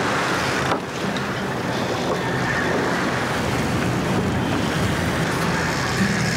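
Wind buffeting the microphone and choppy sea washing against a fishing boat's hull, over a steady low hum from the boat.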